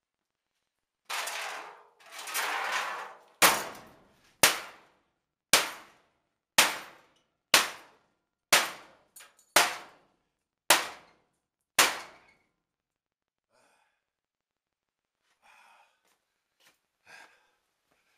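Hammer blows on the sheet metal of an old furnace being torn out: two longer noisy crashes, then about nine sharp, ringing bangs, roughly one a second.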